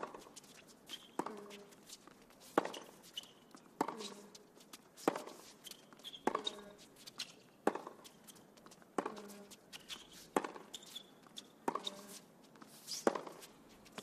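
Tennis rally on a hard court: racquets striking the ball in turn, about a dozen sharp hits evenly spaced roughly every 1.3 seconds.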